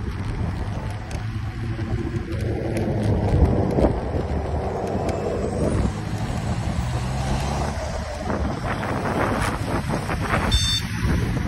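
Wind buffeting the microphone over a steady low rumble from an electric scooter rolling along a footpath. A short high-pitched beep sounds near the end.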